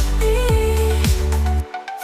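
Background electronic music with a deep kick drum about twice a second under a held synth melody; the bass and beat drop out near the end.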